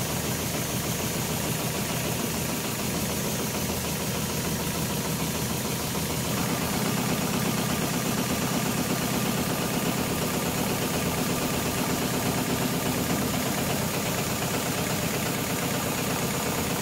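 HighTex GLK700-5030 programmable pattern sewing machine running, its needle stitching heavy lifting-sling webbing in a fast, even rhythm as the clamp frame moves the work. About six seconds in, the tone shifts slightly and grows a little louder.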